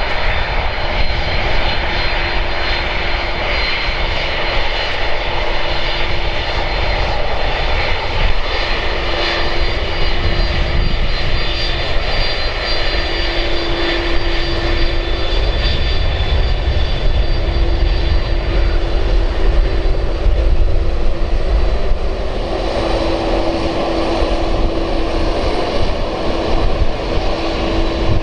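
Boeing 767-300ER's two GE CF6-80C2 turbofan engines running at low taxi power: a steady, loud jet rumble with high, whining tones held throughout.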